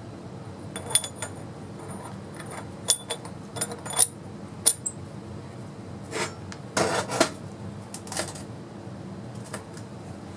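Steel ring and cast wheel hub knocking together on a steel workbench: several light metallic clinks with a short ring, then a few longer scrapes of metal sliding on metal, over a steady low hum.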